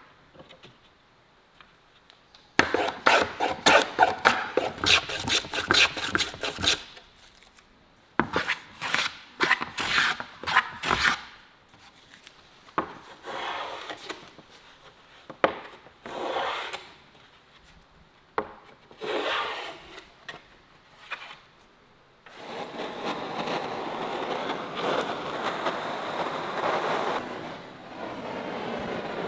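Wood being rasped by hand: bursts of quick back-and-forth scraping strokes, then single slower strokes, then a steadier run of continuous rubbing near the end.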